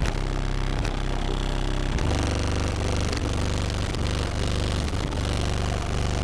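Deep, loud bass from a car audio system of eight Sundown Audio SA-12 12-inch subwoofers playing bass-heavy music, heard from outside the car. The bass gets heavier about two seconds in.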